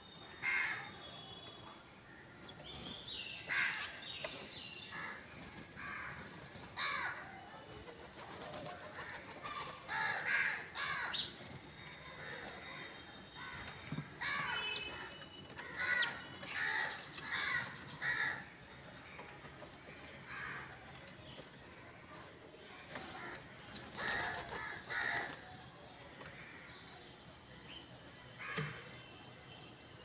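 Crows cawing repeatedly in short harsh calls, with house sparrows chirping and wings flapping as birds land and take off.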